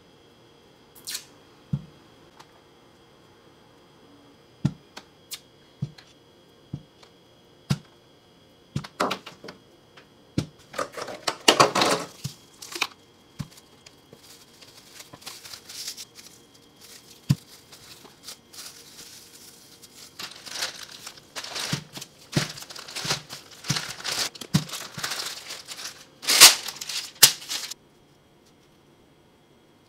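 Plastic cling wrap torn off its roll with a few loud ripping pulls, then crinkling steadily as it is wrapped around unripe avocados. Before that come a few light taps as avocados are handled in a plastic clamshell container.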